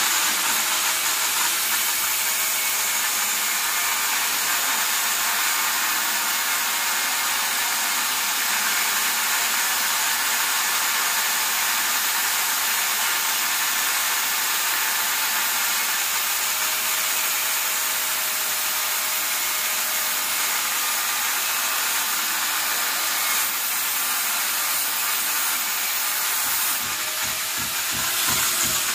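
Electric angle grinder with an abrasive disc cutting through steel reinforcing rod, running steadily under load. Right at the end it is switched off and its pitch falls as the disc winds down.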